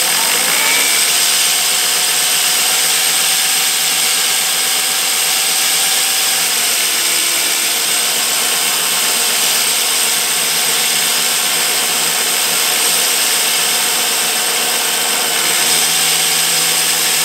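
Electric drill spinning the reel of an ATCO Balmoral cylinder mower backwards, the reel blades grinding against the bedknife through lapping paste: a steady grinding hiss. This is backlapping, resharpening the reel and bedknife with the bedknife set a notch closer.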